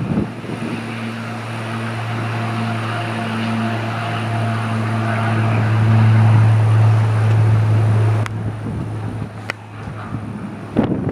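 Propeller airplane engine running with a steady hum, growing louder toward the middle and then cutting off abruptly about eight seconds in, leaving a few clicks.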